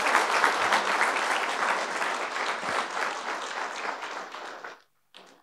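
Applause from a large seated audience, many hands clapping at once, tapering off and stopping shortly before the end.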